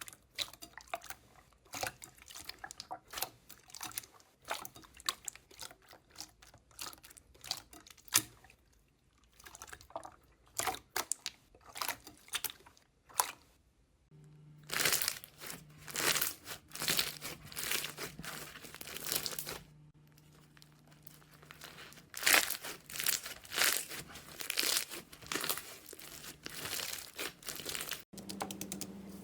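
Slime being squeezed, pressed and pulled by hand: dense runs of sticky crackles, clicks and pops. A faint steady low hum sits under the second half.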